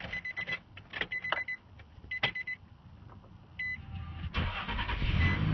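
Dashboard warning chime beeping repeatedly amid a few clicks, then a 2005 Nissan Frontier's engine cranks briefly and catches about four seconds in, settling into a steady idle. A cold start after the truck has sat for a couple of days.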